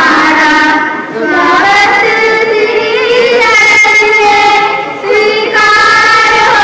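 Singing in a high voice, loud, holding long notes that slide between pitches, with short breaks about a second in and again about five seconds in.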